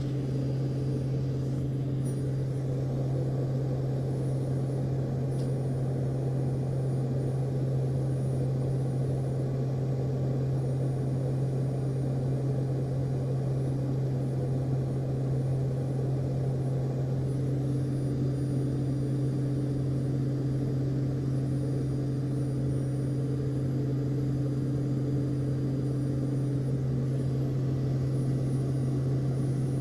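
Steady engine drone: a constant low hum over an even rumble, unchanging throughout.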